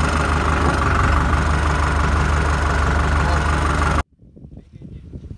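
Tractor diesel engine running steadily, heard from the driver's seat as the tractor drives across a stubble field. About four seconds in the sound cuts off abruptly, leaving only a much quieter outdoor background.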